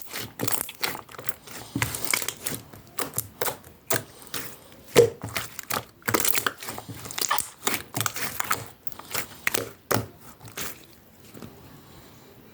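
Pearl slime being squeezed and worked by hand, making a fast, irregular run of clicks and pops. The clicking dies away a couple of seconds before the end.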